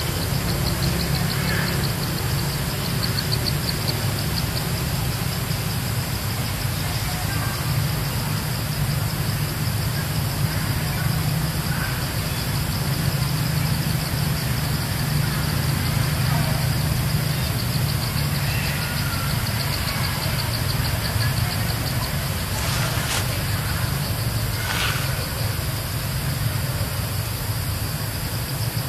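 Steady low drone with a high, fast-pulsing buzz above it, and a few faint short chirps.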